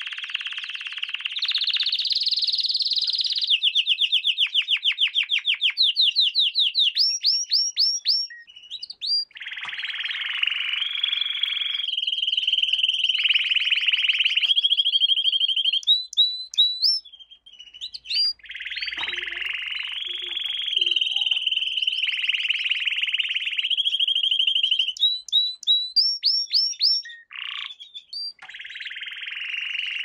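Domestic canary singing: long, fast trills alternate with runs of rapid rising chirps, with brief pauses about eight and seventeen seconds in.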